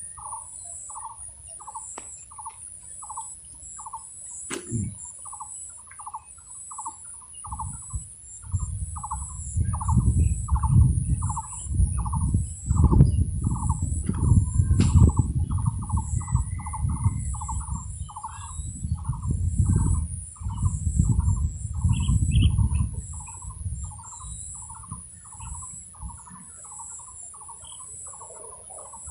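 A bird repeating one short call note over and over, about two a second, over a steady high hiss. From about eight seconds in until about twenty-three seconds, a low rumble in uneven gusts comes and goes and is the loudest sound.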